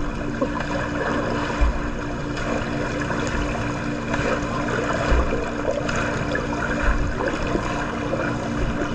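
Swimming-pool water noise: steady splashing and churning water, with a steady low hum underneath and a few dull low thumps.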